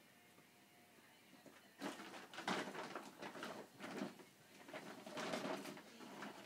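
Plastic carrier bag rustling and crinkling in irregular bursts as cats scramble inside and under it, starting about two seconds in.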